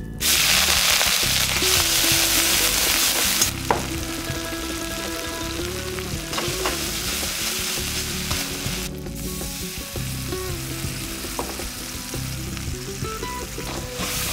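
Spice paste dropped into hot oil in a kadai, setting off a loud sizzle that starts suddenly just after the start and eases after about three seconds into steady frying. A spatula stirs and scrapes the paste around the pan, with a few sharp ticks.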